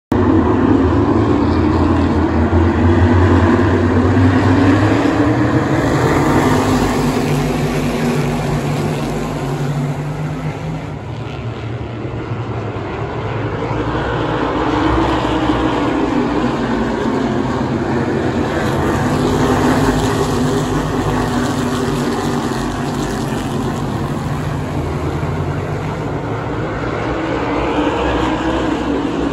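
A field of asphalt modified race cars with V8 engines running around the oval together. The engine noise is loud and steady, swelling and fading as the pack goes by.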